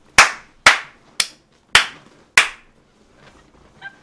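Five sharp hand claps, about two a second, the third one lighter than the rest.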